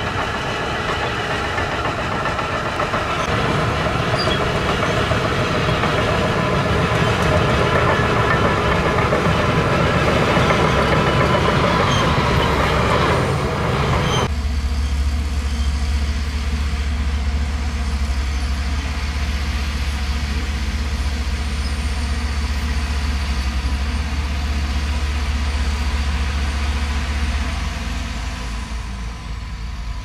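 Shantui crawler bulldozer's diesel engine running while its steel tracks clatter as it pushes soil. About halfway through, the sound changes abruptly to a deeper, steady engine hum.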